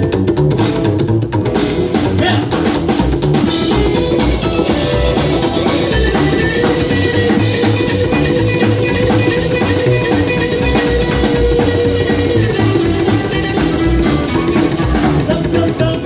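A band playing an instrumental passage with drum kit, guitar and bass, a note held for several seconds in the middle.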